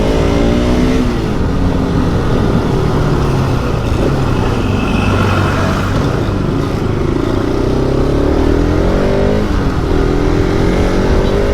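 Honda motorcycle engine running under way, its pitch dropping in the first second, then climbing and falling again over the last few seconds as the rider opens and eases the throttle, over a steady rush of road and wind noise.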